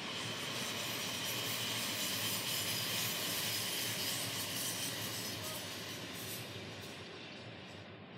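NS double-deck electric passenger train passing, its wheels running on the rails in a steady rush. The sound swells to its loudest partway through and fades away near the end as the last car goes by.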